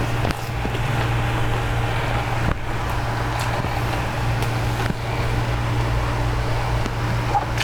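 A steady low hum under a light even hiss, with a few faint clicks and taps scattered through it.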